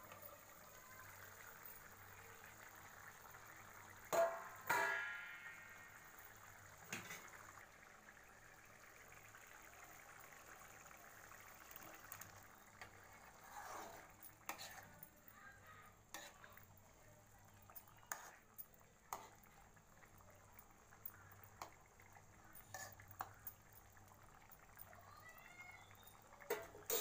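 A metal spoon stirring pakodi through liquid curry in a steel kadai: wet stirring with light clinks of the spoon against the pan, over a faint steady hiss. A louder metallic clatter with a short ring comes about four seconds in.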